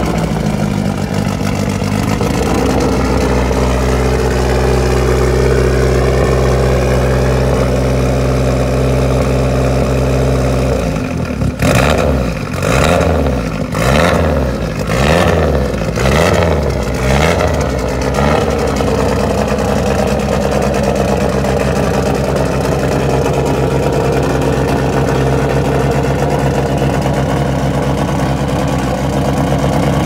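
Lancia Delta HF Integrale 16v Group A rally car's turbocharged four-cylinder engine idling, then blipped about six times in quick succession, the revs rising and falling with each blip, before it settles back to a steady idle.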